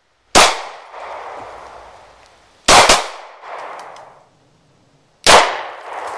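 Three shots from a Glock 27 pistol in .40 S&W, about two and a half seconds apart, each followed by an echo that dies away over a second or so.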